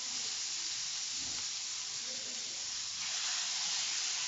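Masala-coated fish sizzling in hot oil in a frying pan: a steady, even hiss, the pan-fry just under way.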